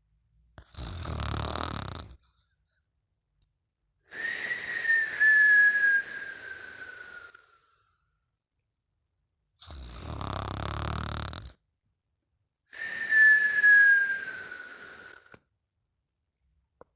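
Someone asleep snoring, twice: each breath is a short rumbling snore followed by a longer whistle that slides down in pitch, the whistle being the loudest part.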